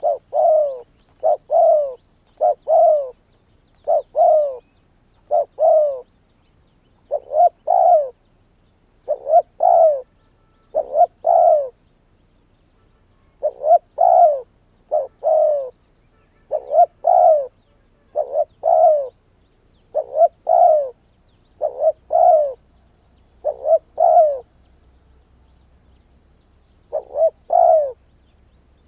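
Spotted dove (cu gáy) cooing: short coo notes given in quick pairs, a pair every second or two, with a longer pause near the end. It is a decoy bird calling to lure wild doves in.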